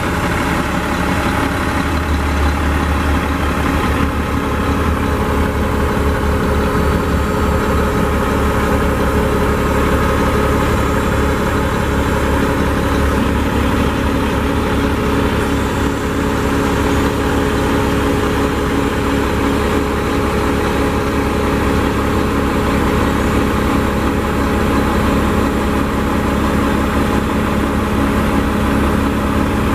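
Mack MP7 inline-six diesel engine of a 2013 Mack side-load garbage truck idling steadily.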